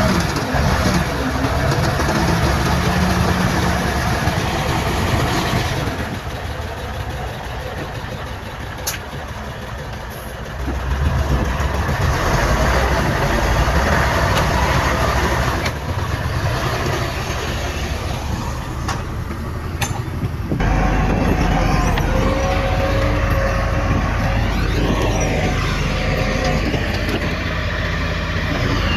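Diesel engines of earthmoving machinery (a bulldozer and dump trucks) running and working. The sound changes abruptly every few seconds, with a quieter stretch between about 6 and 11 seconds in.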